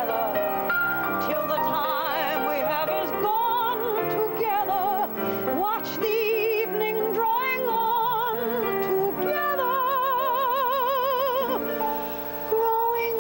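A woman's soprano voice singing a ballad with wide vibrato, holding long notes, accompanied by piano.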